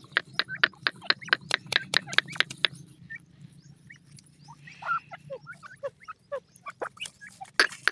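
Rapid ticking, about four sharp ticks a second, the feeding call that the chicks are trained to come to. It pauses for a few seconds in the middle, where short falling chirps are heard, and starts again near the end.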